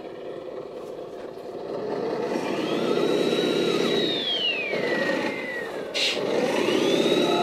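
Radio-controlled truck driving: a rough engine-like rumble over a thin electric motor whine that rises, holds, then falls away, and rises again near the end. A short hiss about six seconds in.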